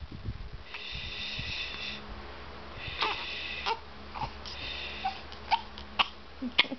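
A baby with the hiccups fussing: faint, high whimpering cries, broken by several short, sharp hiccups that come closer together near the end.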